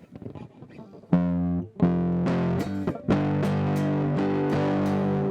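Electric guitar played through distortion: about a second of faint noise, then chords struck about a second in, again near two seconds, and a third one around three seconds in that is held ringing.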